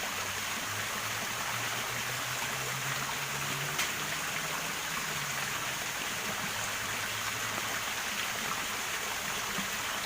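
Water pouring steadily from an outfall into a ditch: an even, unbroken rush of flowing water.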